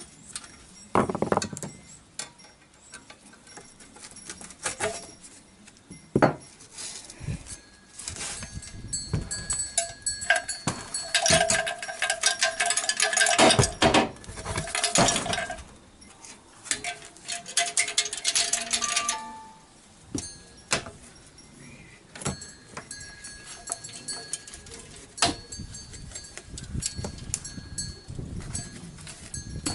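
Honda CB750 steel muffler being tipped and shaken, loose broken fragments rattling and clinking inside the can with a metallic ringing, densest through the middle. The rattle shows pieces have broken off inside the holed muffler. Scattered clicks and knocks of metal on metal come before and after.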